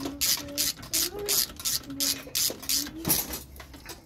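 Hand ratchet wrench clicking in quick, even strokes, about four a second, as a brake caliper bolt is run down and tightened.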